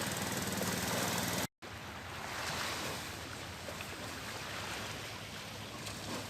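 A steady engine hum that breaks off at an abrupt cut about a second and a half in, followed by a steady rush of wind and water noise.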